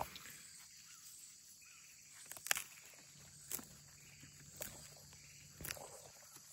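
Hands rustling through weeds and the leaves and stems of an okra plant while reaching for a pod, with several short sharp clicks roughly a second apart from the middle on. Faint steady insect chirring runs underneath.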